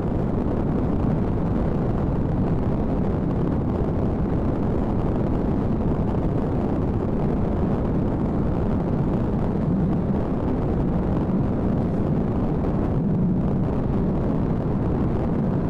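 Steady low rumble of a car driving at highway speed, heard inside the cabin: tyre and engine noise holding even with no change in speed.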